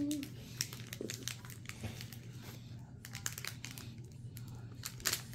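Crinkling of a foil trading-card pack wrapper as it is handled and opened, with the cards inside being handled, in irregular short crackles.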